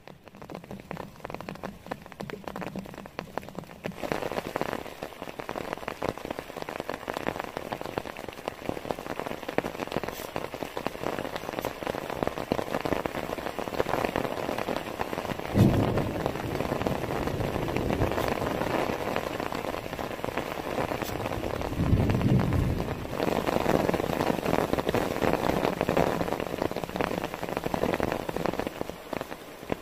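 Heavy rain pouring down, a dense patter of drops that grows heavier a few seconds in. Two short low rumbles stand out, about halfway through and about two-thirds through.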